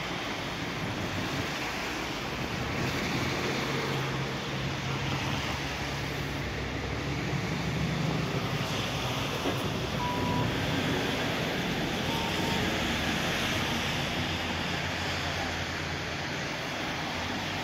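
Road traffic on a wet street: a steady rush of car tyres, with a low engine hum during the first half.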